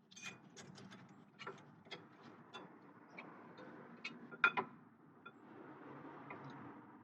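Light, irregular metallic clicks and taps of rear disc-brake hardware (bracket, clips and bolts) being handled and fitted by hand, over a faint rustle. A louder pair of clicks comes about four and a half seconds in.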